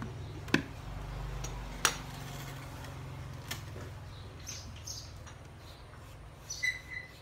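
A few sharp clicks and knocks of power tools being handled, over a low hum that fades away; short bird chirps come in during the second half.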